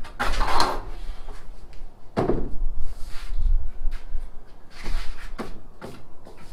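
Irregular wooden knocks and clunks from boards being handled: a loud one near the start, then several more a second or two apart.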